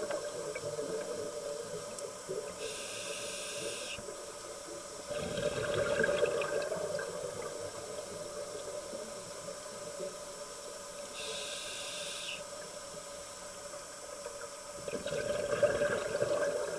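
Scuba diver breathing through a regulator underwater: a short hiss of inhalation about three seconds in and again near the twelve-second mark, each followed by a longer gurgling rush of exhaled bubbles.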